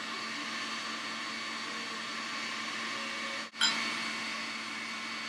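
A steady, even hiss with no clear tone or rhythm, dropping out for a moment about three and a half seconds in.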